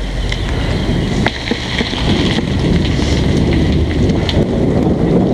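Wind rushing over the microphone of a camera on a moving bicycle, mixed with the rumble of tyres rolling on asphalt and a few light clicks. It grows louder about two seconds in.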